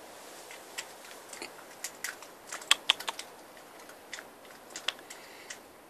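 Red fox eating, its chewing giving a run of irregular sharp crunches and clicks, loudest and most crowded a little under halfway through.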